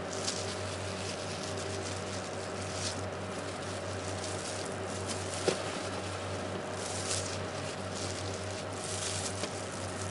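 Steady low machine hum of food-counter equipment, with short soft rustles of plastic food-service gloves and paper as tomato and cucumber slices are laid on a sandwich, and one small click about halfway through.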